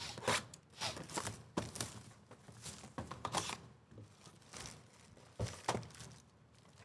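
A sealed cardboard hobby box of 2023-24 Panini Phoenix basketball cards being torn open and its wrapped card packs pulled out: a string of irregular tearing, scraping and crinkling rustles with small thumps.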